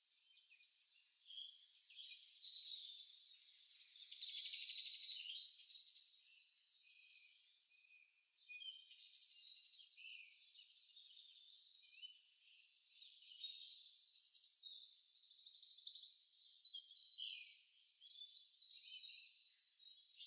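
High-pitched chirps and pulsed trills of birds and insects, a continuous wildlife background with a louder buzzing trill about four to five seconds in.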